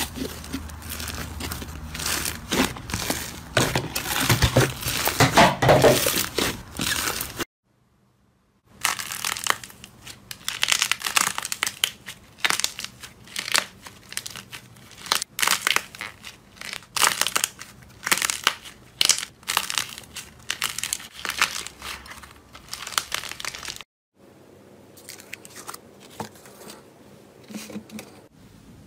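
Hands squeezing, stretching and tearing thick fluffy slime, making dense, irregular crackling and popping. The sound stops for about a second after roughly seven seconds, and in the last few seconds the crackles are quieter and sparser.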